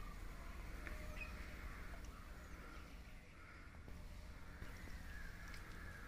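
Faint cawing of crows.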